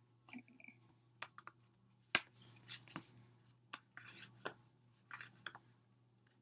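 Hands handling an album's photocards and paper packaging: scattered clicks and short rustles, the sharpest click about two seconds in, over a low steady hum.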